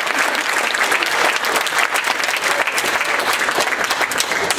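Audience applauding, a dense, even clatter of many hands clapping.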